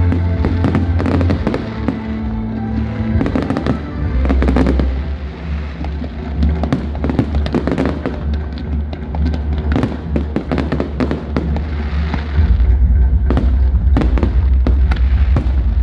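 Fireworks display: shells bursting in many quick bangs and crackles, over loud music with a heavy bass line that gets heavier about twelve seconds in.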